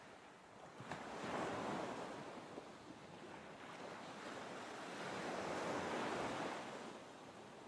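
Ocean waves washing in a slow rise and fall, swelling up a second or so in and again about two-thirds of the way through.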